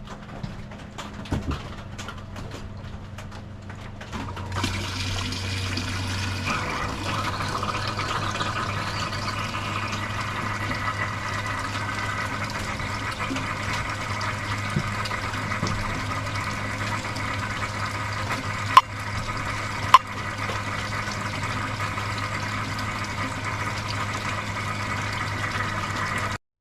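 Water starting to rush through a sluice box about four seconds in, then a steady flow. Two sharp clicks sound about two-thirds of the way through.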